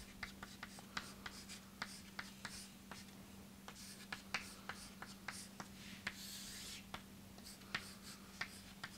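Chalk writing on a chalkboard: a run of light, irregular chalk taps as symbols are written, with one longer scrape a little past six seconds in as a line is drawn. Faint throughout.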